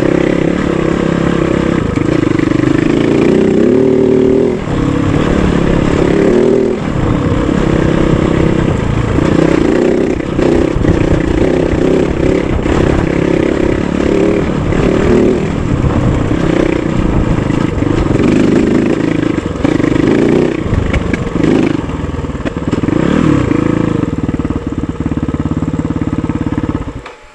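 KOVE 450 Rally's single-cylinder engine running on the move on a dirt track, its revs repeatedly rising and falling with the throttle. The sound drops away sharply near the end.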